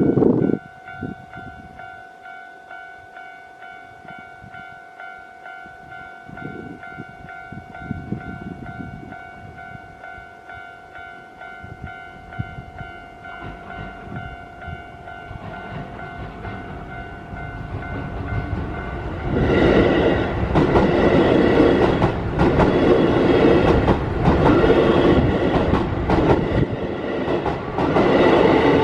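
Japanese level-crossing warning bell ringing in a rapid, steady repeating ding. About two-thirds of the way in, a Keio electric train passes close by, wheels clattering over the rail joints, and stays loud to the end.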